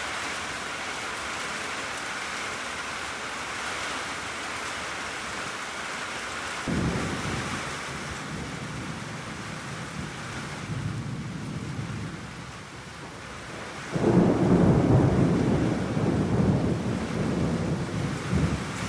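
Steady rain falling, with thunder rumbling twice: a shorter rumble about seven seconds in and a louder, longer one about fourteen seconds in.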